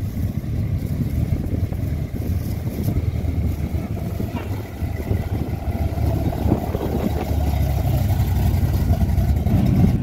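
Classic car engines running at low revs as the cars drive slowly past, with voices in the background.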